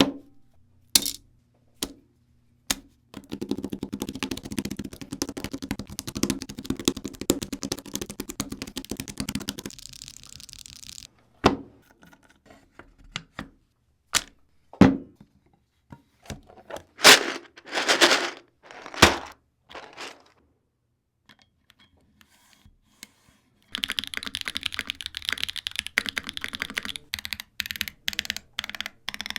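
Mode Sonnet custom mechanical keyboard being put together: scattered sharp clicks and thunks of parts set in place, with a long stretch of rapid clicking and rattling in the first third. A brief lull comes about two thirds of the way in, then rapid keyboard typing for the last five seconds or so.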